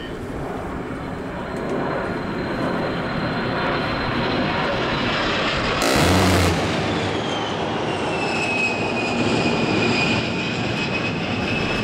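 A-10 Thunderbolt II's twin TF34 turbofan engines during a low pass, a steady jet noise. In the second half a whine slowly falls in pitch as the jet moves away. About six seconds in there is a sudden, very loud burst lasting under a second, the loudest moment.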